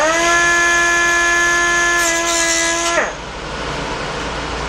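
Die grinder with a cut-off wheel spinning up to a steady high whine as it notches the plastic clip of a Dyson V8 battery pack, with a short grinding hiss near the end of the cut. It then spins down after about three seconds.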